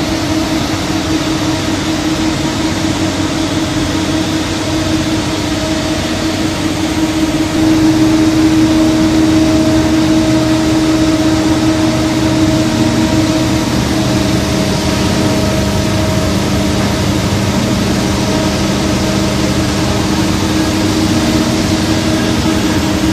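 Machinery of a plastic film recycling and pelletizing line running: a steady mechanical hum with a held drone on top. It gets a little louder about eight seconds in.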